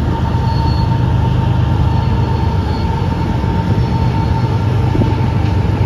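Diesel-hauled freight train running along the riverbank: a steady low rumble with a thin steady whine above it.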